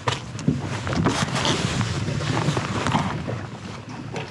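Rustling and small irregular knocks from a caught crappie being handled and measured.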